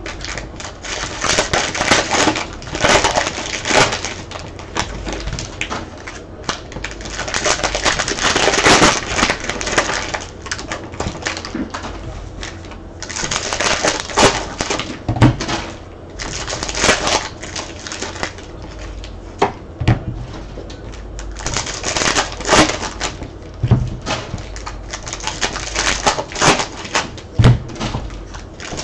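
Trading-card pack wrappers crinkling and tearing open, and cards being slid and handled, in crackly bursts with short pauses. A few soft low knocks come now and then.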